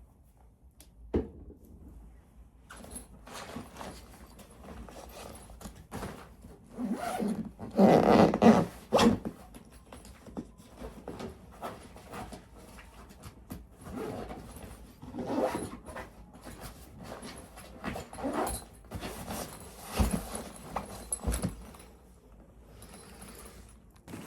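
Irregular rustling, knocks and thuds of belongings being handled and packed, with the loudest burst of rustling about eight seconds in and a few sharp knocks near the end.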